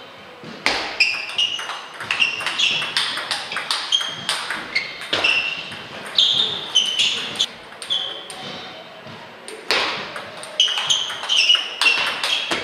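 Table tennis balls clicking off bats and tables in quick rallies, each hit a short sharp tick, some with a brief ringing ping. The clicks thin out for about two seconds past the middle, then a new rally starts.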